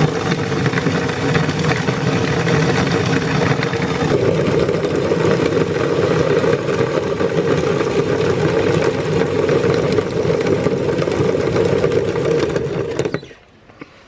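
Meat grinder motor running steadily under load, its tone growing stronger about four seconds in, then switched off suddenly near the end.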